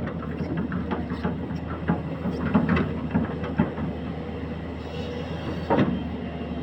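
Excavator's diesel engine running steadily under a stream of sharp knocks and clanks from the machine at work, with louder knocks around a third of the way in and again near the end.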